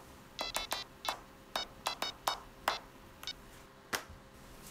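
Mobile phone keypad beeping as a number is dialled: a dozen or so short, high beeps at an uneven pace, thinning out after about three seconds.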